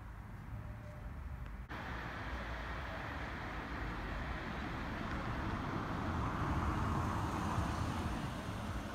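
City street traffic noise: the background changes abruptly less than two seconds in, then a passing road vehicle builds to its loudest about seven seconds in.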